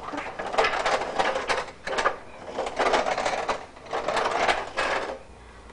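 A large toy truck rattling and clattering as it is rolled over the floor, in several runs of about a second each with short pauses between.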